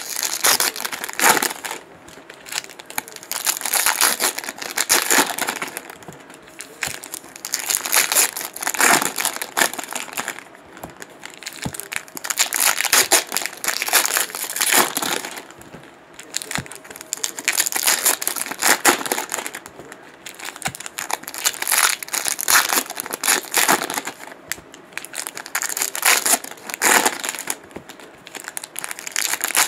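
Trading-card pack wrappers crinkling as packs are torn open and the empty wrappers crumpled, in repeated bursts every few seconds.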